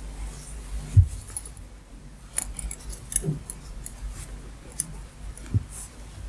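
Double-pointed knitting needles clicking and tapping against each other as stitches are worked, with scattered sharp clicks. A few low thumps from handling the work, the loudest about a second in.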